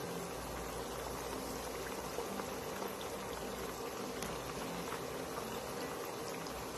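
Flour-coated chicken pieces deep-frying in hot oil, a steady sizzle and bubbling, with a few faint clicks. The pieces are golden brown and nearly done.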